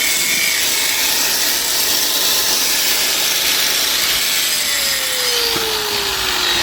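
Electric grinder grinding the rust off an old fireman's axe: a steady, loud grinding hiss over the motor's whine, which sinks in pitch from about four seconds in.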